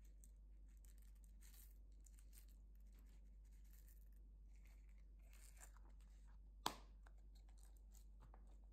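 Faint rustling and pattering of green sequins and confetti tipped from a small plastic cup onto slime, with one sharp click about two-thirds of the way through.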